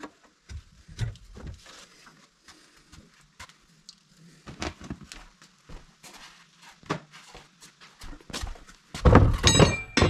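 Scattered knocks and clunks of parts being handled during the heater setup, ending about nine seconds in with a loud metallic clatter that rings briefly.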